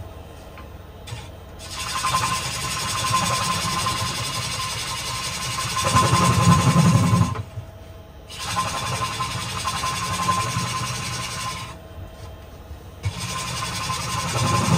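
A gouge cutting the face of a spinning sycamore platter on a wood lathe, shavings hissing off the tool. There are three cutting passes, with short breaks where the cut stops.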